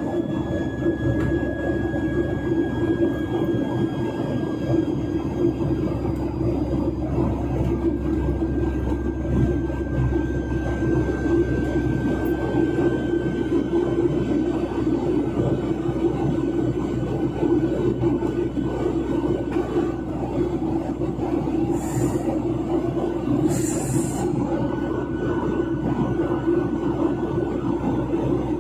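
Cabin noise inside a Boeing 737-900ER airliner in flight: its CFM56-7B jet engines and the airflow make a steady drone, with a faint whine that slowly falls in pitch. Two brief high hisses come near the end.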